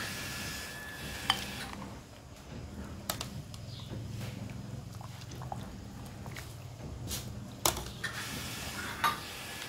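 Metal ladle stirring soup in an aluminium pot, knocking against the pot's side in a few sharp clinks, with softer scraping and swishing between them.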